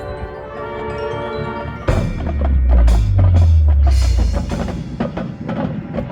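Marching band music: the band holds a sustained chord with bells and mallet percussion ringing, then about two seconds in the full band and bass drums come in with a loud hit, followed by a series of sharp percussion accents.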